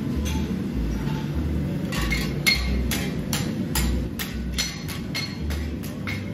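Farrier's hammer striking steel with a ringing clink. After a couple of scattered blows, a quick, even run of about three or four strikes a second begins about two seconds in, over a low, pulsing rumble.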